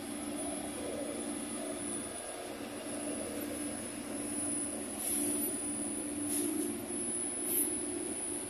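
Battery-electric city buses pulling slowly past, giving a steady electric hum and a thin high whine, with a few brief hisses in the second half.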